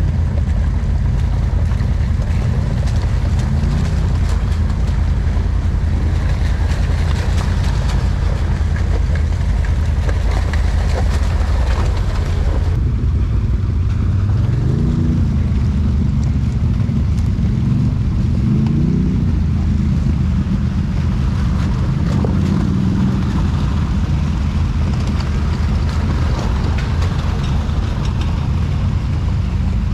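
ATV engine running at trail speed, revving up several times, with an even hiss over it that drops away suddenly about halfway through.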